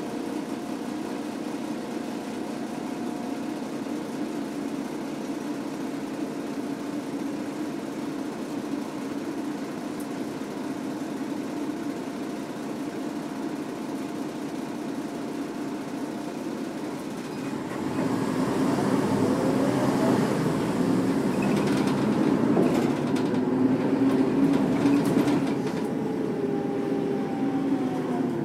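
A Mercedes-Benz O405 bus's OM447H six-cylinder diesel running steadily, then a little over halfway through it grows louder and its note rises as the bus pulls away. The note slides back down near the end.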